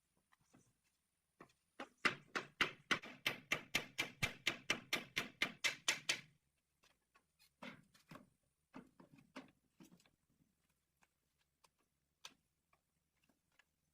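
A fast, even run of about twenty strokes, roughly five a second, lasting some four seconds, then a few scattered light knocks and clicks.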